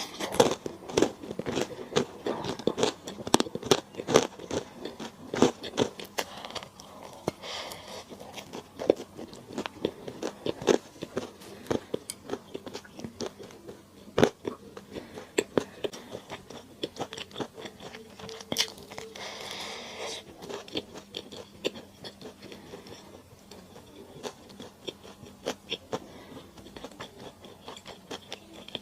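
Close-miked eating sounds of someone chewing and biting into lemon chicken stir-fry, with many quick, irregular mouth clicks and smacks. There is a brief hiss about two-thirds of the way through.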